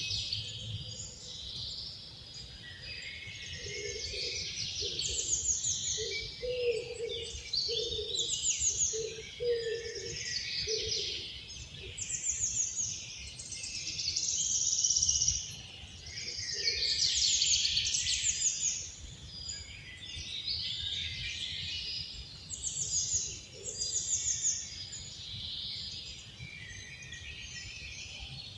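Several songbirds singing at once in a dense, overlapping chorus of high warbles, chirps and quick descending trills. A run of short, low notes repeats several times in the first third, over a steady low background rumble.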